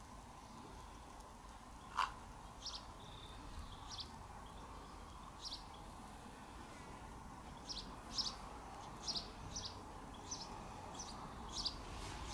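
Birds chirping in short, high, scattered chirps over a faint steady background, with one sharp click about two seconds in.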